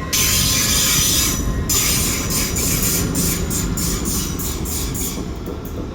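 GWR Class 800 train passing through the station, with rumble and wheel-on-rail noise and a rhythmic clatter of the carriages going by. The noise eases off near the end as the train moves away.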